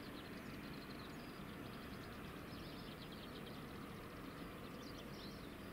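Faint steady outdoor background noise, a low even rumble with light high-pitched chirping scattered through it.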